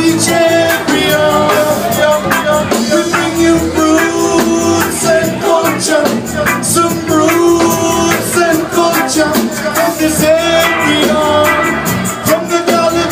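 Live roots reggae band playing, with a steady drum beat and a singing voice over the instruments.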